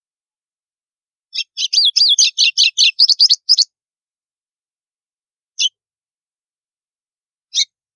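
Golinha (white-throated seedeater) singing the 'estalo' song type: a rapid run of about a dozen sharp, high, snapping notes lasting about two seconds, then two single notes a couple of seconds apart.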